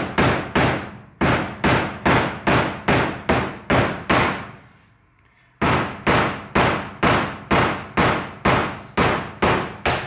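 A mallet striking a metal sleeve again and again, driving it into the rubber mounting bushing of a power steering rack. The blows come at about three a second, stop for about a second roughly four seconds in, then resume.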